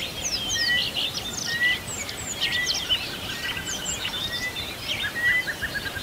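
Several birds chirping and calling together in quick, overlapping high chirps, with one short, slightly rising note repeated about once a second.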